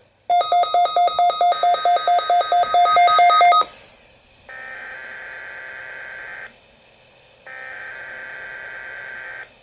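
Weather radio broadcast sounding electronic alert tones: a rapid beeping of about four beeps a second for about three seconds. Then come two buzzing data bursts of about two seconds each, a second apart, which are the coded digital header of a weather radio alert.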